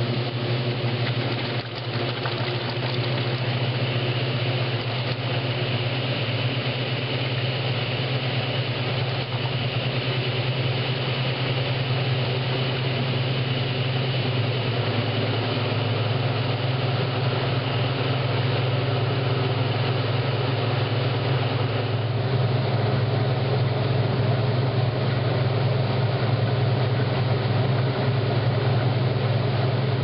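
1963 Maytag A700 washing machine in its spin cycle, the motor and drive humming steadily as the drained basket spins. A faint high whine rides over the hum and drops out about two-thirds of the way in, after which the sound is a little louder.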